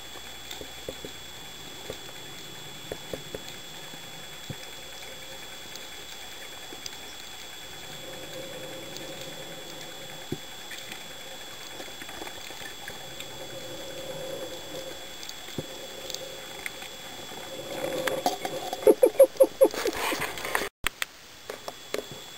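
Underwater audio from a diver's camera: scattered faint clicks over a steady hiss and a thin high whine. About eighteen seconds in comes a quick run of loud bubbling gurgles, lasting about two seconds: gas bubbles from the diver's breathing gear.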